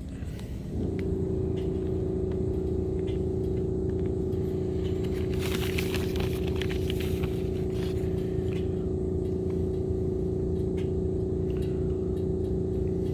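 A steady motor hum starts about a second in and holds at one pitch throughout. A brief rustle comes around the middle.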